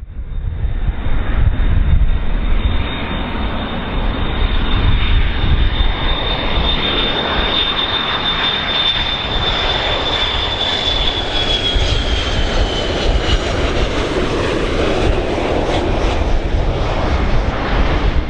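Airplane coming in to land, its engines running loud: a steady rumble with a high whine that slides down in pitch about two-thirds of the way through.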